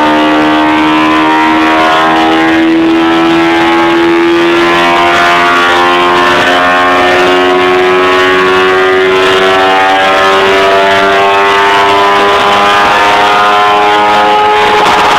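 Kawasaki ZX-10R inline-four motorcycle engine in a kit car, loud at full throttle on a rolling-road dyno during a power run. Its pitch climbs slowly and steadily as the revs rise toward the peak-power range of about 13,000 rpm.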